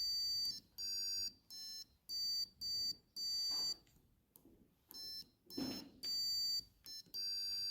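A string of electronic buzzer beeps of uneven length, some short and some about a second long, separated by brief gaps, with the pitch shifting slightly from beep to beep. A faint low rumble shows up twice between beeps.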